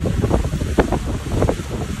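Wind buffeting the microphone on a moving motorboat, over rushing wake water, with the boat's engine humming low underneath and a couple of harder gusts about halfway through.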